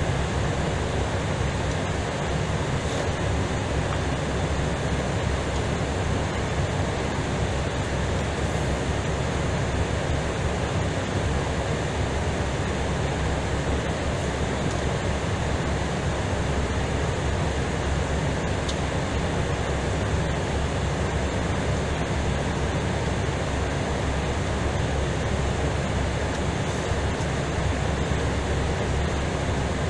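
Steady rushing cockpit noise of an Airbus A320ceo taxiing at low speed, an even rumble that holds without change.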